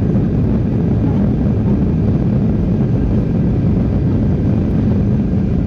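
Steady low rumble inside the cabin of a Boeing 737 rolling fast down the runway just after touchdown: engine noise mixed with the rumble of the wheels and airframe.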